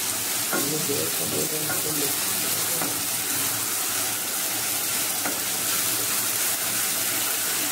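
Chopped onions sizzling steadily in hot oil in a metal kadai while a spatula stirs them, with a few faint scrapes of the spatula on the pan.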